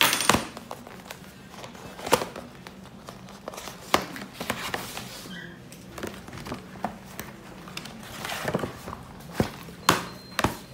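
Hands handling a yellow cardboard box and a folded T-shirt on a wooden table: several sharp knocks and thunks as the box is moved and set down, with rustling of the box and fabric between them.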